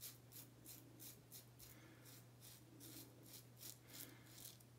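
Edwin Jagger DE89 double-edge safety razor scraping stubble on the neck in short, quick strokes, about four a second, faint.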